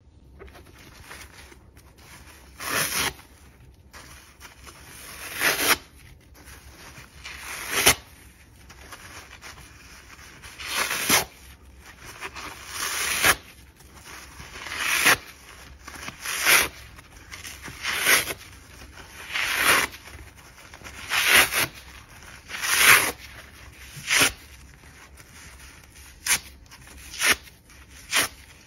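Soapy, sliced microfiber car sponge being ripped apart by hand: about fifteen short, crisp tearing rips, one every second or two, several swelling up before they snap through.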